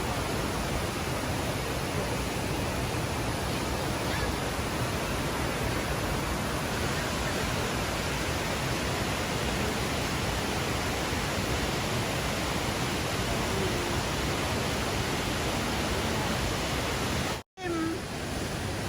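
Large waterfall's water pouring down steadily, a constant, even rushing noise, cut off for a split second near the end.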